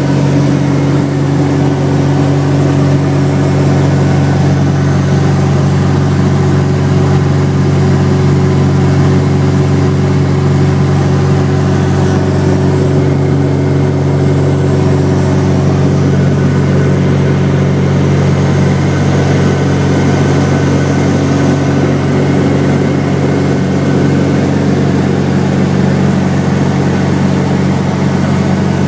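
Cessna 404 Titan's twin piston engines and propellers running steadily at cruise power, heard from inside the cockpit as a loud, even hum with several steady low tones.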